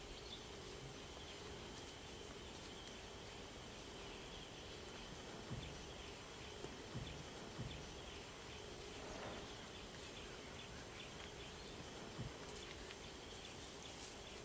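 Faint bush ambience: a steady high insect drone, with a few dull low thumps.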